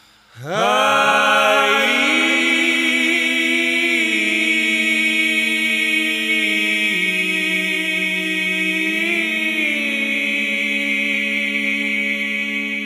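Wordless a cappella harmony singing: several layered voices slide up into a chord about half a second in, then hold it, moving slowly from chord to chord.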